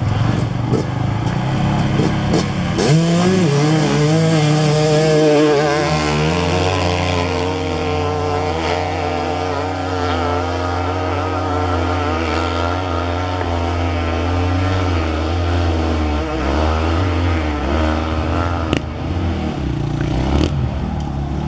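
Hill-climb motorcycle engine revving up about three seconds in, then running hard at high revs with its pitch wavering up and down until near the end.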